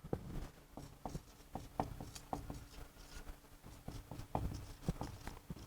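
Faint scratches and taps of writing, as short irregular strokes every fraction of a second, over a faint steady hum of room tone.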